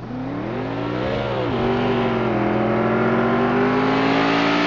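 A motor vehicle engine revving up. Its pitch climbs, drops abruptly about a second and a half in, as at a gear change, then rises slowly and steadily again.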